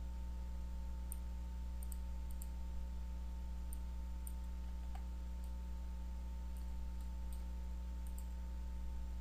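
Steady low electrical hum with faint, irregularly spaced clicks of a computer mouse, about a dozen over the stretch.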